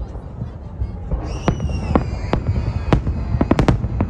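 Fireworks display: a series of sharp bangs over a steady low rumble, the bangs coming quicker toward the end. A high, slightly falling whistle runs from about a second in until near the end.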